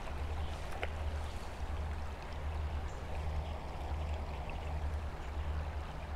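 Shallow creek water running steadily over rocks.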